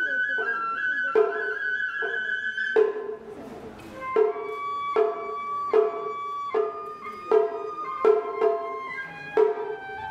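Japanese festival ohayashi: a shinobue bamboo flute plays a melody over steady, evenly spaced taiko drum strikes. The flute holds a high note, pauses briefly about three seconds in, then goes on with lower held notes while the drumming keeps time.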